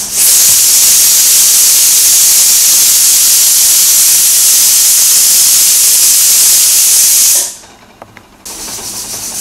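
Stovetop pressure cooker's weighted whistle valve venting steam: a loud, steady hiss that cuts off sharply about seven seconds in, followed by a fainter hiss near the end. It is one of the whistles counted to time the cooking, the sign that full pressure has built up inside.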